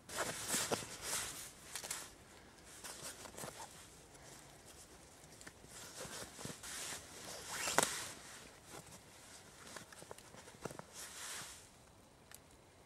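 Rucksack fabric and webbing straps being handled: irregular rustling of nylon with scattered clicks and scrapes, the loudest a sharp rustle and click about eight seconds in.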